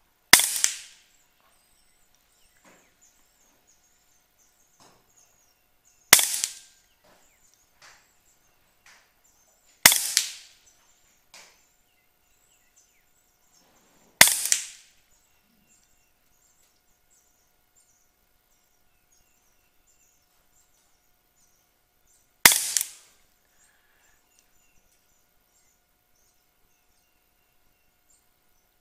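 Air Arms LCS SK-19 .22 pre-charged pneumatic air rifle fired five single shots several seconds apart, each a sharp crack with a short fading tail.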